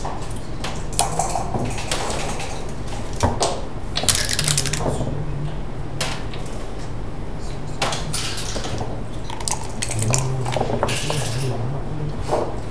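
Backgammon play: dice clattering as they are rolled onto the board and hard checkers clicking as they are picked up and set down. Scattered sharp clicks, with a few longer rattles of the dice, over a steady low hum.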